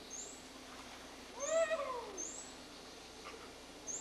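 A bird chirps in short high notes about once a second. About one and a half seconds in, one louder drawn-out call rises and then falls in pitch.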